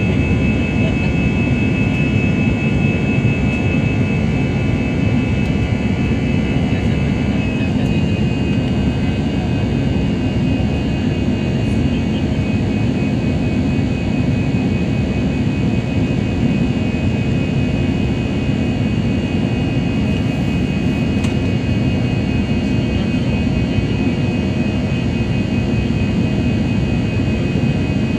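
Jet airliner cabin noise during the climb just after take-off: a steady rushing drone of the engines and airflow, heard from inside the cabin by the wing. A thin high tone within it shifts in pitch about seven seconds in.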